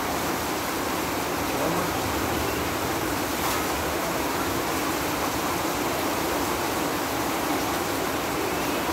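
Heavy rain pouring steadily: a dense, even hiss that does not let up.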